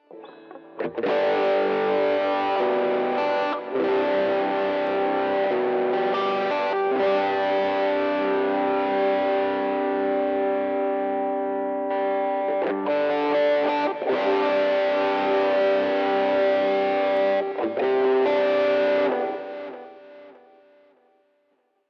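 Distorted electric guitar played through a NUX MG30 Gen2 multi-effects unit with a Joyo American Sound amp-simulator pedal, letting long chords ring and re-striking them every few seconds. About 19 seconds in, the last chord dies away to silence.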